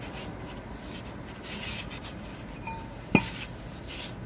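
Tissue rubbing over the steel brake drum of a 2017 Toyota Yaris while it is being wiped clean. About three seconds in comes a single sharp metallic clank with a short ring as the drum is set down on the concrete floor.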